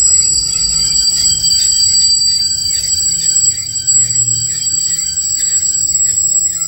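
Intermodal container wagons rolling past on the track: a low rumble with a steady high-pitched squeal from the wheels, and a light regular clatter about twice a second.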